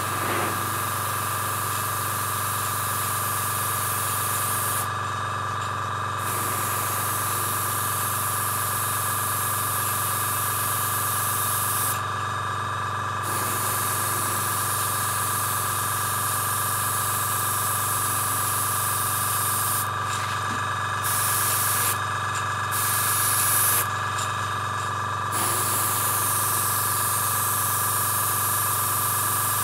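Airbrush spraying thinned red paint in a steady hiss, cut off briefly about five times as the trigger is let go between passes. A steady hum runs underneath throughout.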